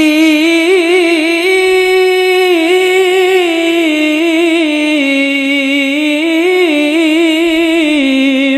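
Male Qur'an reciter (qari) singing one long, unbroken melismatic passage in the tilawah style, the pitch weaving up and down in quick ornamental turns.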